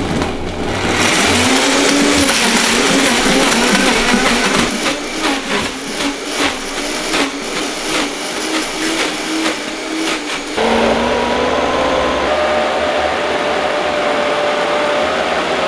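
Vitamix 5200 blender running at speed, its 1500-watt motor churning a thick smoothie of frozen fruit while the tamper presses it down into the blades. The motor winds up over the first couple of seconds, there is an irregular clatter through the middle, and about two-thirds of the way in the pitch steps up abruptly and holds.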